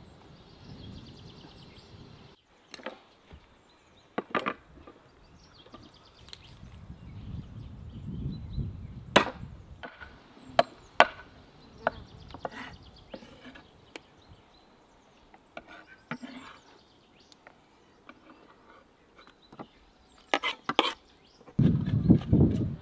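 Knife chopping on a wooden cutting board as a raw guinea fowl is cut up, a series of sharp separate strikes spaced irregularly. Near the end, a spade digs into soil, louder and lower than the chops.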